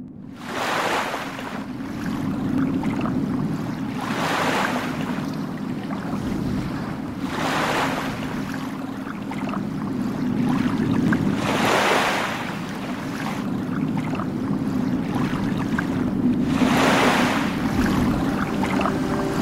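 Waves washing in five times, each a hissing swell of about a second, over a steady low rumble of wind and water.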